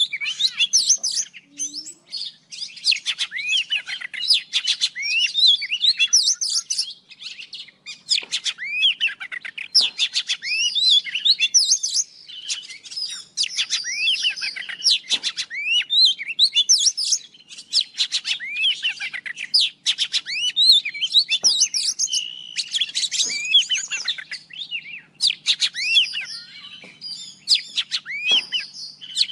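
Oriental magpie-robin singing: a varied stream of rapid whistled phrases, with quick rising and falling notes mixed with fast scratchy note-runs, in bursts of a second or two separated by short pauses.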